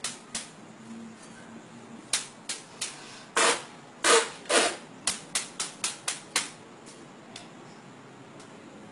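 A sword blade chopping down onto a man's bare back in a rapid series of sharp smacks, most of them packed between about two and six and a half seconds in. There are three longer, louder bursts around the middle.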